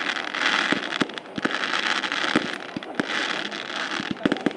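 Aerial fireworks crackling in a dense fizzing hiss, with many sharp pops and bangs scattered through. The crackle eases off about three seconds in.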